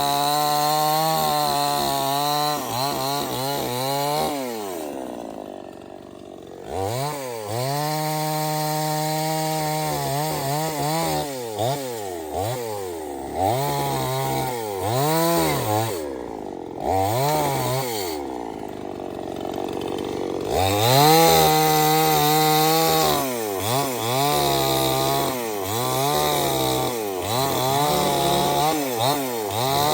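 Stihl 070 two-stroke chainsaw running hard, its engine pitch repeatedly rising and falling as the throttle is worked. It drops briefly toward idle twice.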